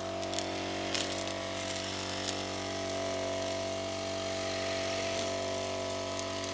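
Brush cutter (line trimmer) engine running at a steady speed, with a few faint clicks over it.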